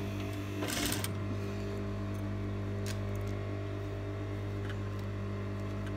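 Steady low hum from an industrial sewing machine's motor idling, the machine not stitching. A brief rustle of cloth being handled comes about a second in, with a few faint clicks later.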